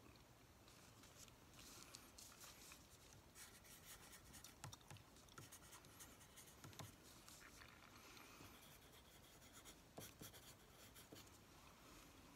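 Faint scratching of a pen writing on paper, with a few soft clicks.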